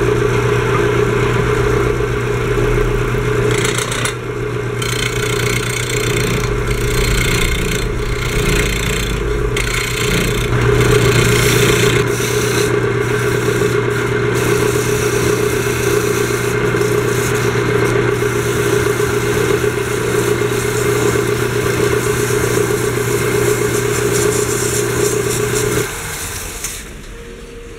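Homemade wood lathe, driven by a washing-machine motor, running with a steady hum as a chisel cuts the spinning wooden workpiece, the cutting coming in uneven scraping passes during the first half. This is a test run after repair of the headstock bearing shaft; the motor is switched off near the end and the hum stops.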